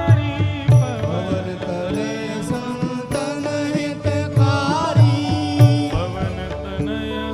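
Hindu devotional bhajan music to Hanuman: a wavering melody line over a held drone, with steady hand-drum strokes underneath.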